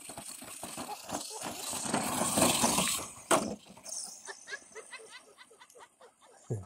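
Arrma Senton 4x4 RC truck racing down a gravel hillside, its motor and tyres on loose dirt and stones growing louder as it closes in, loudest about two and a half seconds in, with one sharp click just after. It then runs on more quietly.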